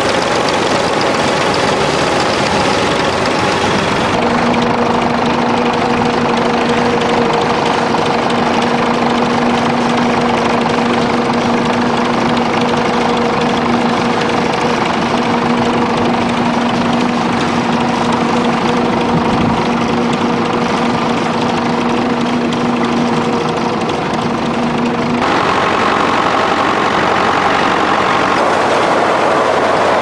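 Vintage tractor engines running steadily under load while pulling ploughs through the soil. The sound changes abruptly about 4 and 25 seconds in, and the middle stretch has a steady drone.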